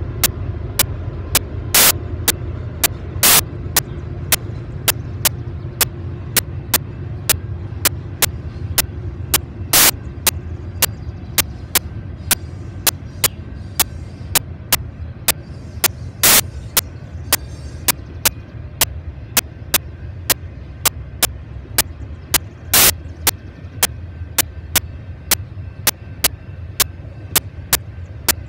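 Railroad grade-crossing bell striking about twice a second, a steady run of sharp strikes, over a steady low rumble.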